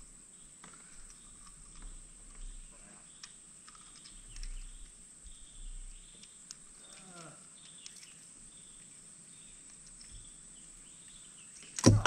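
Quiet outdoor ambience under a steady high-pitched hiss, with small clicks and rustles of a bass being unhooked by hand, and one loud sudden knock near the end.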